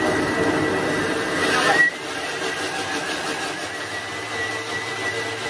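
Thermomix food processor's motor and blades running, chopping whole cooked beetroot and chickpeas into hummus. Loudest and roughest for the first two seconds while the chunks are broken up, then it settles into a steadier whir with a thin high whine.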